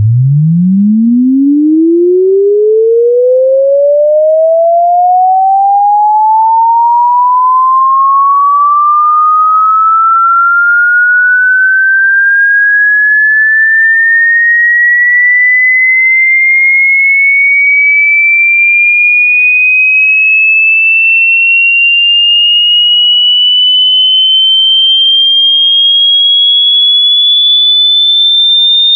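A single pure electronic sine tone sweeping continuously upward in pitch, from a low hum to a high whistle, at steady loudness; the pitch climbs quickly at first and then more slowly.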